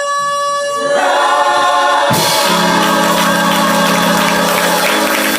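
Gospel choir singing a sustained chord. A single held note is joined by more voices about a second in, and the sound swells fuller about two seconds in.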